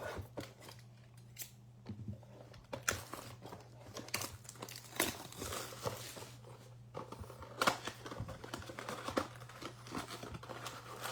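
A Topps Fire baseball card blaster box being opened by hand: wrapper crinkling and cardboard tearing, with irregular rustles and sharp clicks.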